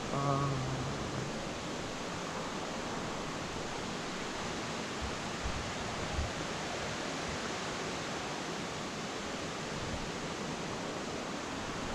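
Steady rushing of a waterfall, an even roar of falling water with no let-up.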